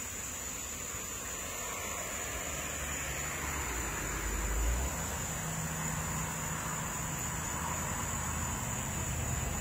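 Honey bee swarm buzzing as bees are shaken off a tree trunk into a wooden box, over a steady high-pitched insect drone. A low hum comes in a few seconds in.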